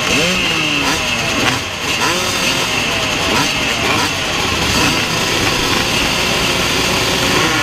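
A pack of vintage motocross bikes revving at the start gate, among them a 1985 Kawasaki KX250 two-stroke. Many engines are blipped up and down over one another, with pitches rising and falling throughout.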